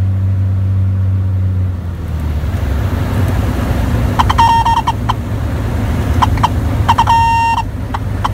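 Beechcraft A36 Bonanza heard from inside the cabin: the six-cylinder engine's steady drone drops to idle about two seconds in, leaving a rushing noise of air over the airframe. From about halfway, the stall warning horn sounds in short on-and-off beeps during the landing flare, the sign of the wing nearing the stall just before touchdown.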